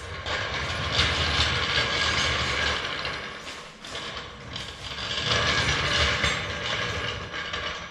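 Metal floor jack being rolled across a concrete floor by its long handle, its wheels and frame rattling in two long pushes.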